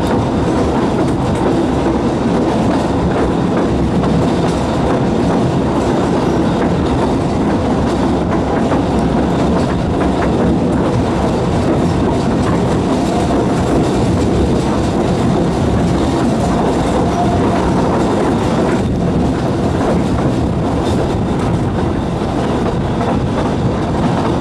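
Talyllyn Railway narrow-gauge steam train running along the line, heard from a carriage: a steady loud rumble of the carriages on the rails with faint, scattered clicks of the wheels over the track.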